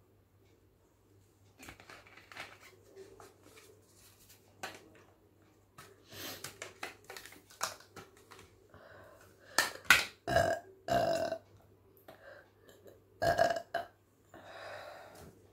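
A woman burping after chugging carbonated cumin masala soda: softer sounds at first, then a run of loud burps about ten seconds in and another loud one near the end.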